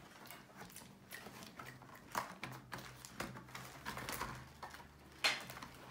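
Plastic toy dollhouse parts and paper being handled: faint rustling and small clicks and taps, with a sharper knock about five seconds in, over a steady low hum.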